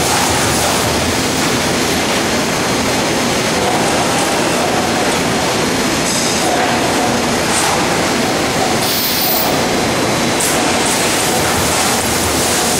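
Trumpf TC500R CNC punch press running its program, punching a steel sheet as the table moves it under the punch head: loud, continuous mechanical noise.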